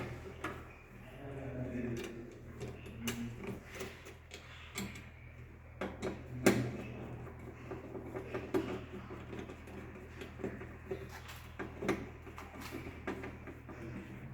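Intermittent clicks and knocks from hand tools and cables being worked at an electrical distribution board during cable termination, the loudest knock about six and a half seconds in, over a steady low hum.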